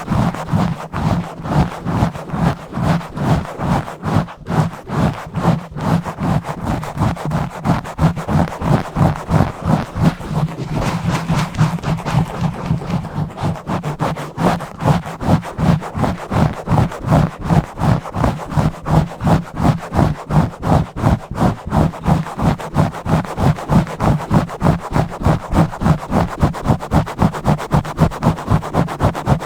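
Fingers scratching and rubbing fast and hard directly on a bare microphone's grille, in quick even strokes at about three a second.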